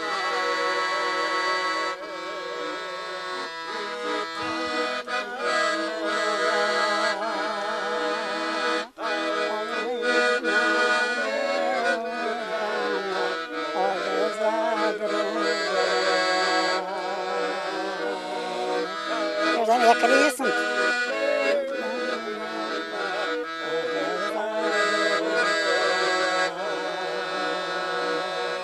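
Piano accordion playing a traditional tune, a moving melody over held chords, with a brief louder swell about two-thirds of the way through.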